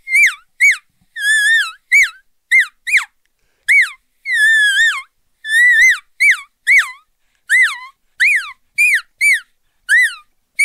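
Elk calf distress calls blown on an elk call: a quick string of short, high, sharp mews, about two a second, each rising then dropping off. A few are drawn out a little longer. The call imitates a lost or distressed elk calf, the kind that draws in cows and bulls.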